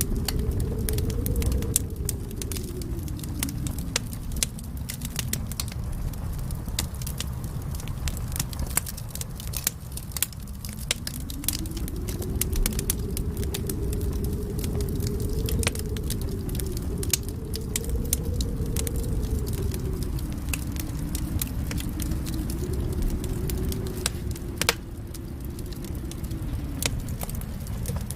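Wind howling in a wavering tone that rises and falls several times over a low rumble, mixed with a wood fire crackling in a fireplace with frequent small pops. There is one sharper pop near the end.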